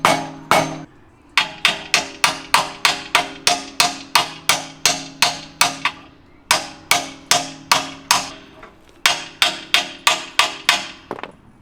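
Repeated hammer blows on a metal car part, each strike ringing. The blows come in quick runs of about three to four a second, broken by two short pauses.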